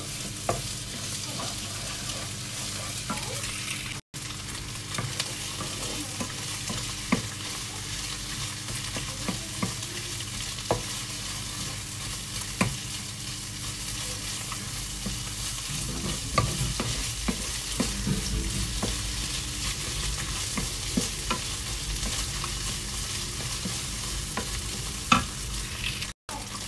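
Fried rice sizzling steadily in a nonstick frying pan as it is stir-fried until cooked, a wooden spatula stirring and scraping it, with scattered light knocks of the spatula against the pan.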